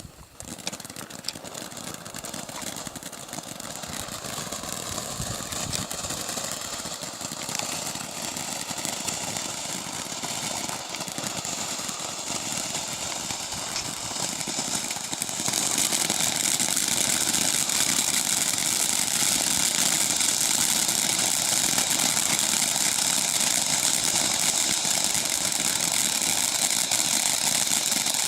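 A World's Strongest Fountain ground firework spraying sparks with a steady hiss that builds gradually, then jumps louder about halfway through.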